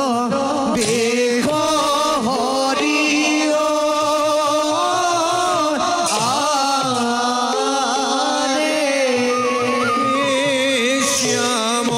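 Live traditional Assamese Bhaona accompaniment: a wavering melody over a steady drone, with the khol barrel drum of the seated ensemble and a few bright percussive accents.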